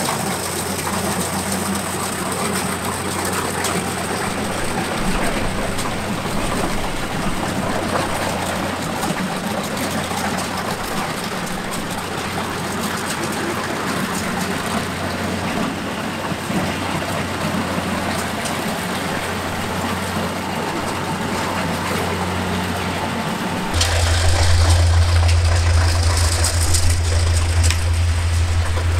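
Farm machine engine running steadily. About 24 s in the sound changes abruptly to a louder, deeper drone.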